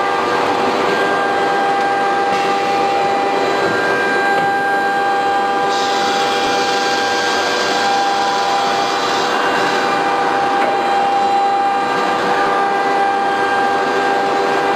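1325 CNC wood router with automatic tool changer, its spindle stopped for a tool change: a steady mechanical hum made of several held tones. A hiss rises over it from about six to nine seconds in.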